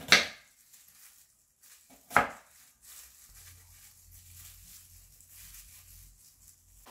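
Kitchen knife slicing an onion on a wooden cutting board: two sharp knocks of the blade on the board about two seconds apart, then faint, quieter cuts.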